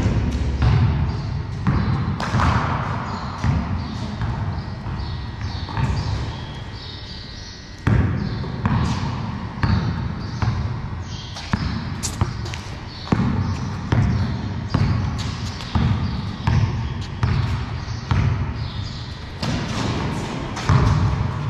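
A basketball bouncing on a concrete floor, dribbled in a steady run of knocks about one to two a second, echoing in a large bare hall. A few knocks are louder, one right at the start.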